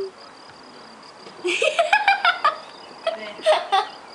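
A high-pitched voice in short broken bursts, like giggling, beginning about a second and a half in.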